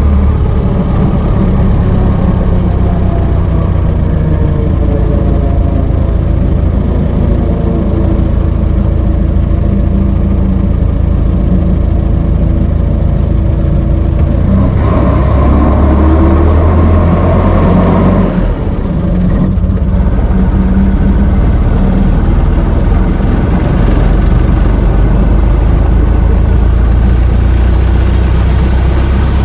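Old car's engine running steadily with a deep drone. About halfway through the engine note swells for a few seconds, then drops sharply for a moment before settling back.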